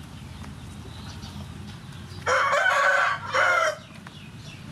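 A rooster crowing once, about two seconds in, with a brief break before its final drawn-out note.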